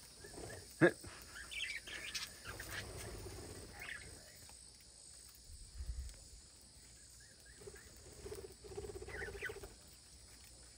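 Budgerigars chirping and chattering in short scattered calls, with a single sharp click about a second in.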